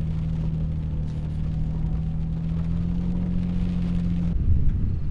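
A vehicle driving at a steady pace, its engine giving a steady low drone; about four seconds in the drone cuts off and a rougher, uneven low rumble takes over.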